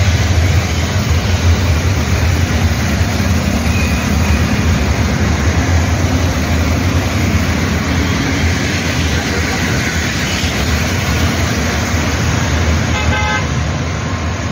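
Busy road traffic: motorcycles, cars and auto-rickshaws passing close by in a steady rush of engine and tyre noise with a strong low rumble. A vehicle horn gives a short toot near the end.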